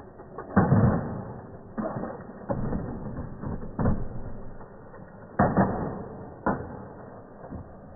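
Plastic toy construction trucks knocking and clattering as they are pushed off a wooden table and fall onto carpet: about six separate knocks with rough scraping between them, the loudest about half a second in and again about five seconds in.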